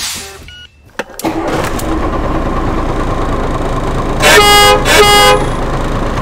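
A vehicle's engine running steadily, then two short horn toots back to back, each about half a second long. A few clicks come in the first second.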